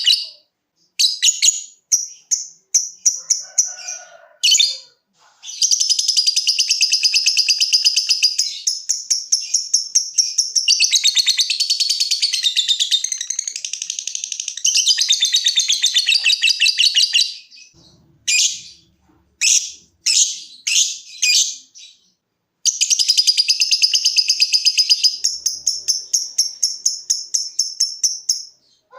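Lovebird ngekek: long, high, rapid chattering trills, one lasting about twelve seconds and a second about six. Between them come shorter clipped bursts of calls.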